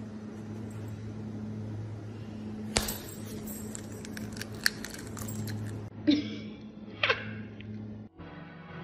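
Small sharp clicks and clinks of an egg and a glass bowl on a stone counter, over a steady low hum. One sharp click comes about three seconds in, a run of lighter ticks follows, and two short sharper sounds come near the end.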